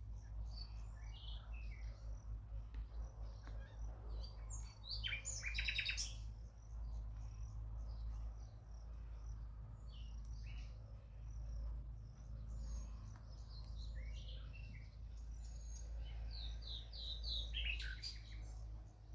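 Nightingale singing in varied phrases of chirps and whistles, with a loud, rapid run of repeated notes about five seconds in and a falling series of notes near the end, over a steady low hum.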